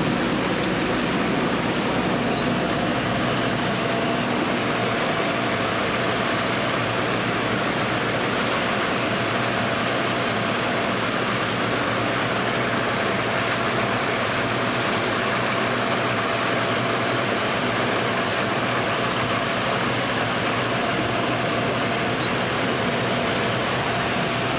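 Steady rushing of water as a fish-stocking truck's tank empties through its discharge tube into the lake, with a faint steady hum from the truck's running machinery.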